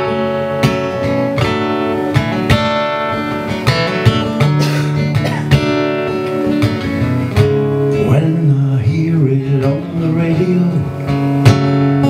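Acoustic guitar strummed live, chords ringing between repeated strokes in a slow instrumental passage.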